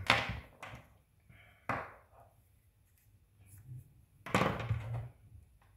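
Three sharp knocks and clicks from small suspension parts being handled and set down on a hard work surface. They come at the start, about two seconds in and near four seconds in, and the last is the loudest.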